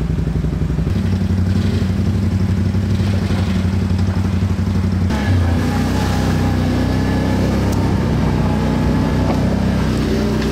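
Quad bike (ATV) engine running steadily as it is ridden over a rough, rocky track. About halfway through, a higher whine joins the engine note.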